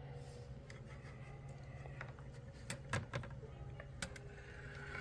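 Quiet room tone with a steady low hum, broken by a few light clicks and taps about two to four seconds in.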